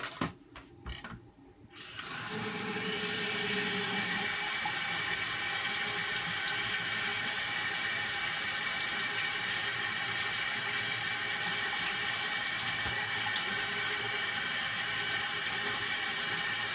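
A few light knocks, then about two seconds in a bathroom sink faucet is turned on and water runs steadily from the tap into the basin, with fingers held under the stream.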